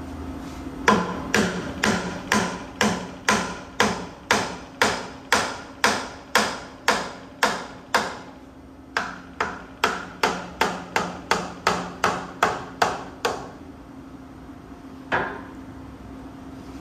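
Repeated hammer blows with a ringing tone. They come about two a second, pause briefly, then run faster at about three a second, with a single last blow a couple of seconds later.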